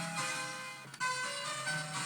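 Circuit-bent toy sound effects machine playing a quick run of beeping electronic notes that step in pitch. The run starts over sharply about a second in.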